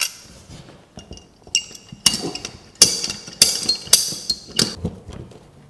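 A series of sharp metallic clinks and knocks, about half a dozen, each with a brief ring, from metal plumbing fittings and tools being handled while a tap connection is fitted to a plasterboard wall.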